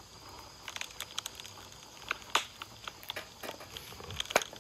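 Kitchen knife paring and cutting a carrot over a wooden cutting board: irregular sharp clicks and taps, the loudest about halfway through, with a few quicker ones near the end.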